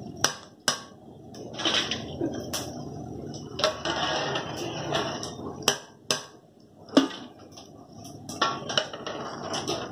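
Large metal frying skimmer knocking and scraping against an iron kadai as a load of fried onion pakoda is lifted and drained over the pan, with hot oil sizzling in between. There are several sharp knocks, the loudest about seven seconds in.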